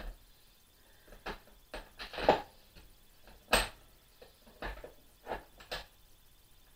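Lathe change gears being set down in a toolbox: scattered knocks and clinks, the loudest a little past two seconds in and another sharp one about three and a half seconds in.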